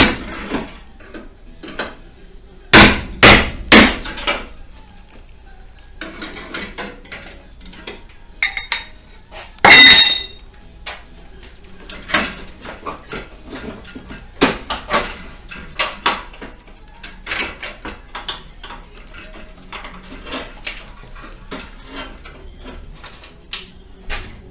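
Hammer and chisel striking rusted sheet steel to break the spot welds of a pickup's front panel. Three hard blows come a few seconds in, then a loud ringing metallic clang about ten seconds in, followed by many lighter, irregular knocks.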